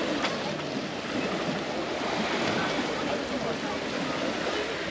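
Steady wash of sea waves against the shore, with faint voices in the background.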